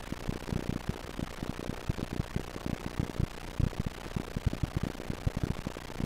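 Irregular low pops and crackle, several a second, over a steady hiss: the audio track of a laserdisc damaged by laser rot, where the oxidised aluminium layer corrupts playback.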